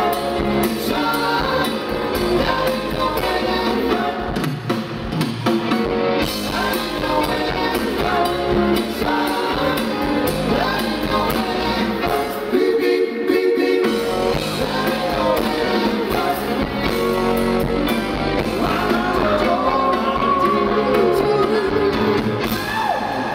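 A live rock band playing, with lead vocals over electric guitar, bass and drums, heard from the audience in a large concert hall.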